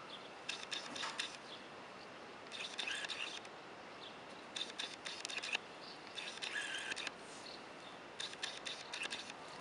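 A bird chirping in short bursts of rapid calls, repeating about every two seconds.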